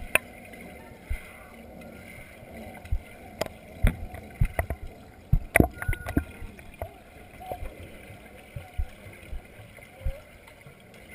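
Irregular knocks and clicks over a steady rushing, watery background.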